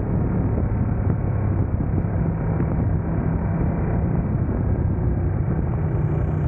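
Sport motorcycle engine running steadily at speed, a low even hum under a constant rush of wind and road noise.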